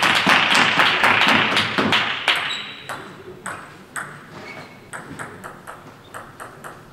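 Table tennis ball clicking, bouncing about twice a second while a player readies to serve. For about the first two seconds a louder, noisy wash of voices and clicks fills the hall.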